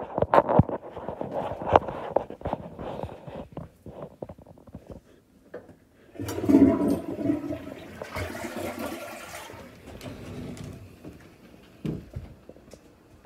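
Clicks and knocks for the first few seconds, then about six seconds in a toilet flushes: a sudden rush of water that fades away over several seconds. A single thump near the end.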